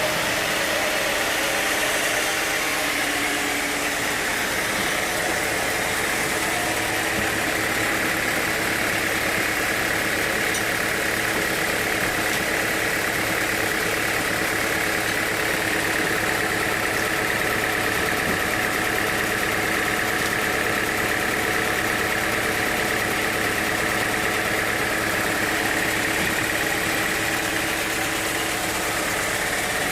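Sawmill machinery running steadily: an even mechanical hum with a high whine over it.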